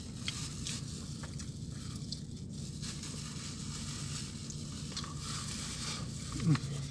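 Faint crinkling of clear plastic food gloves and eating noises over a steady low hum. Near the end there is a short falling voiced 'mm'.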